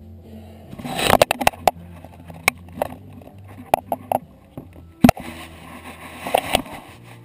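Plastic sheeting crackling and rustling as it is handled, with a series of sharp knocks and bumps; the loudest knock comes about five seconds in.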